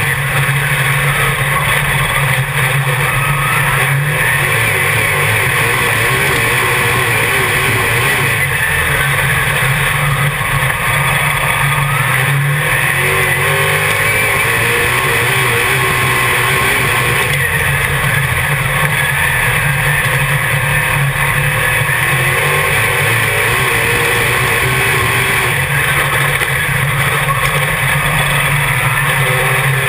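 Dirt modified race car's V8 engine running hard under racing load, heard loud from inside the cockpit. The engine note falls and climbs again in a regular cycle every eight seconds or so.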